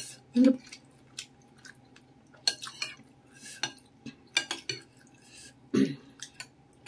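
Stainless steel spoon clinking and scraping against a ceramic bowl of noodle soup: a series of light, irregular clinks as the spoon stirs and scoops.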